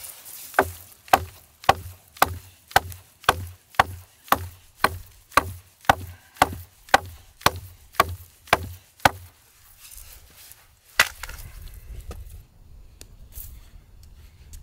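Wood being chopped with steady, even blows, about two a second and some seventeen in all, then a pause and one last heavier blow.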